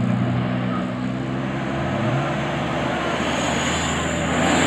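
A coach bus driving past: its diesel engine hums steadily, the engine note drops about two seconds in, and then a rising rush of road noise follows.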